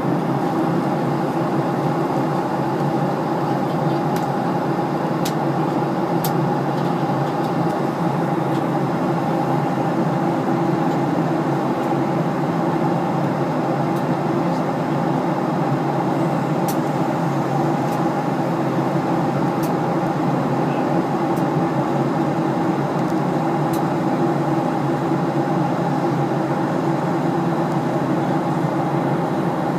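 Steady drone inside an airliner cabin in flight: engine hum with a few steady tones over the rush of air, and now and then a faint click.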